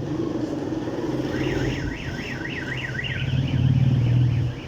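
A vehicle alarm warbling, its pitch going up and down several times a second for about three seconds, over a steady low hum that grows louder near the end.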